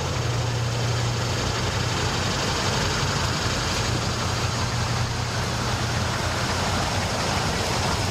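A motorboat's engine idling steadily: a constant low hum under an even hiss.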